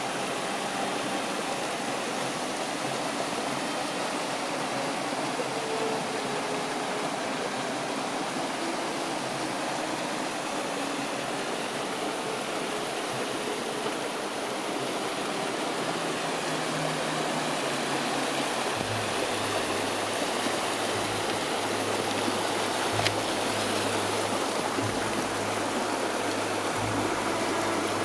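Glacial meltwater stream rushing steadily through a channel cut in the ice. A low, uneven rumble joins the water sound about two-thirds of the way through.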